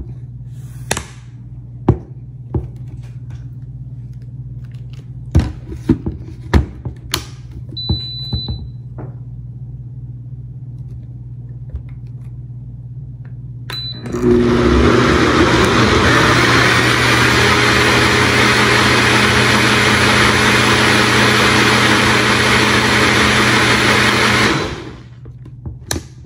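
Several clicks and knocks, two short electronic beeps, then a countertop blender starts about halfway through and runs steadily for about ten seconds, blending watermelon chunks into juice, before stopping.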